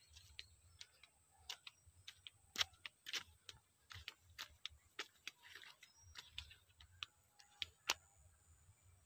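Faint, irregular sharp clicks and ticks, a few a second, over a low rumble, with a faint steady high whine underneath.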